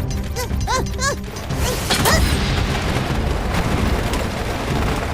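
Cartoon soundtrack of background music with sound effects: a few short high voice-like calls at the start, then a sudden boom about two seconds in, followed by a steady dense rumble.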